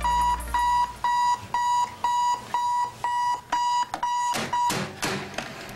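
Bedside alarm clock beeping, a high electronic beep repeated about twice a second, about ten times, then cutting off, followed by a brief noise.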